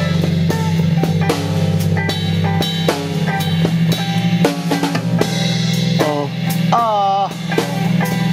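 Instrumental passage of a song: a drum kit with bass drum and snare plays a steady beat over held bass notes. About seven seconds in, a melody line bends up and down in pitch.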